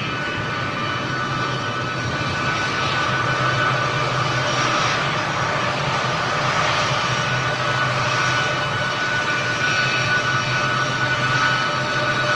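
Boeing C-17 Globemaster III's four Pratt & Whitney F117 turbofan engines running as the aircraft taxis and turns close by: a steady high whine over a low hum, growing a little louder over the first few seconds.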